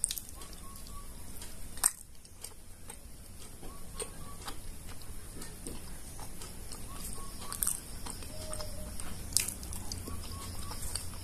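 Mouth sounds of a person biting into and chewing a soft, syrup-soaked gulab jamun: scattered wet smacks and clicks, a few sharper ones about two, seven and nine seconds in.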